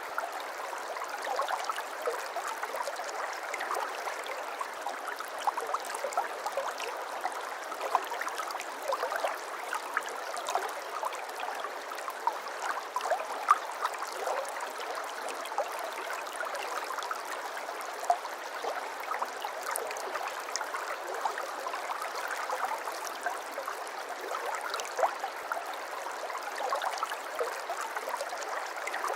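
Water flowing and babbling in a shallow stream, a steady rush scattered with many small splashes and trickles.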